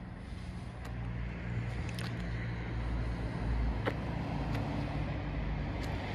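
Diesel engine of a Ford-based motorhome idling steadily, a low hum, with a few faint clicks over it.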